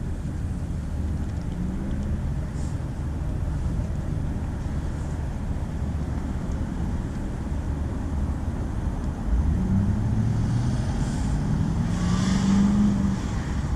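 Steady rumble of city traffic. From about ten seconds in, a vehicle's engine grows louder and rises in pitch as it accelerates, for about three seconds.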